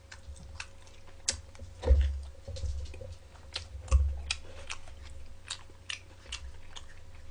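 A man biting into and chewing a cheesy pizza slice close to the microphone: many short wet mouth clicks. Two louder dull low thumps come about two and four seconds in.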